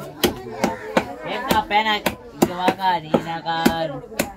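A heavy fish-cutting knife chopping through tuna on a wooden block, sharp chops at about two a second.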